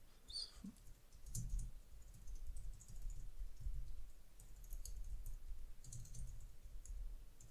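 Computer keyboard typing, faint: keystrokes clicking in short quick runs with brief pauses between them.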